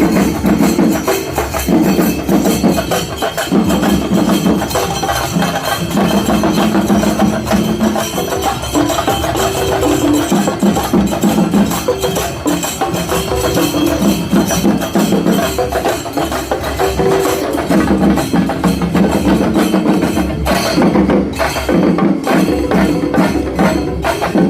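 Chenda melam: an ensemble of Kerala chenda drums beaten with sticks in fast, continuous rolls, the deeper strokes coming in pulsing phrases.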